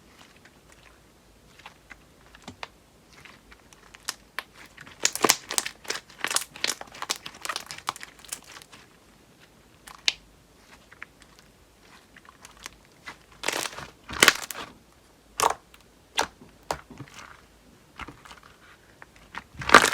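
Slime being squeezed, stretched and pressed by hand, giving clusters of quick crackles and pops with quiet pauses between.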